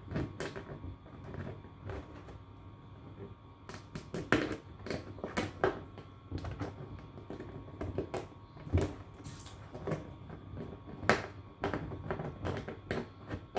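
Hard plastic panels of a folding shoe-box rack being handled and locked together by their tabs: irregular clicks and knocks, with a few sharper snaps.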